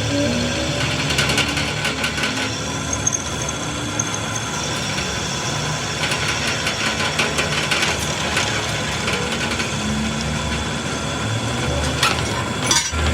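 A vehicle engine running steadily, with clusters of sharp metallic clicks and taps over it.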